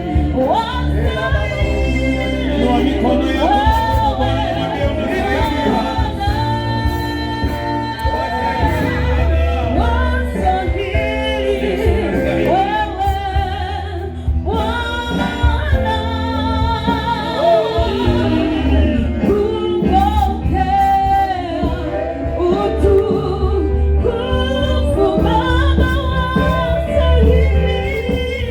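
Gospel worship music: voices singing over a band with a strong, steady bass.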